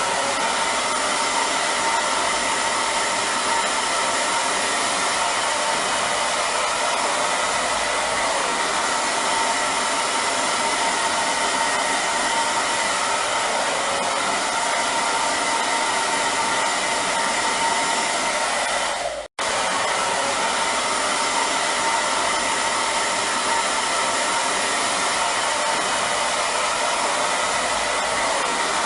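Hair dryer running steadily: an even rush of blown air with a faint steady whine. It cuts out for an instant about nineteen seconds in and resumes at once.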